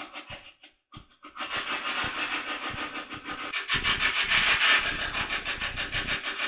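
Spirit box sweeping through radio frequencies: a hiss of static chopped up many times a second, cutting out briefly about a second in, then coming back louder.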